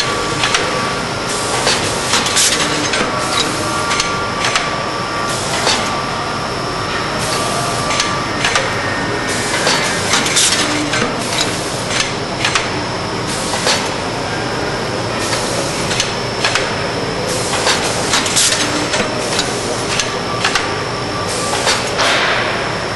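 Vertical form-fill-seal bagging machine running: a steady mechanical din broken by repeated sharp clacks at uneven intervals as its sealing jaws and carriages cycle.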